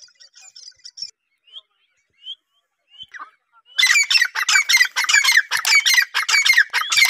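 Grey francolin calling: a few faint chirps and short notes, then about four seconds in a loud, fast run of harsh repeated notes.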